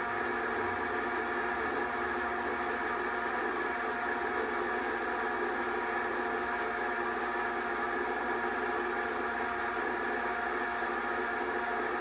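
Film projector running: a steady mechanical whir with constant humming tones and no change in level.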